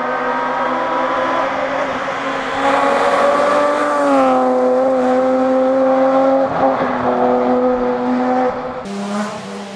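BMW M3 rally car engine running hard under load at high, fairly steady revs. It gets louder about two and a half seconds in, the pitch dips slightly about four seconds in, and the sound changes abruptly near the end.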